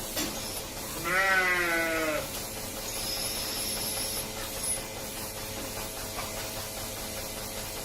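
A calf bleating once, a single wavering call about a second long that sinks slightly in pitch.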